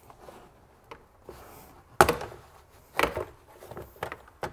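Plastic trunk trim of a Porsche 981 Cayman being handled and lifted out. Several sharp knocks and clicks as the clip-on panel comes free and bumps the surrounding trim, the loudest about two seconds in.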